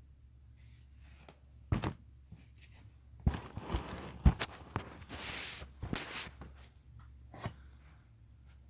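Slime being handled: a few scattered sticky clicks and squelches, with a brief hissing rush about five seconds in.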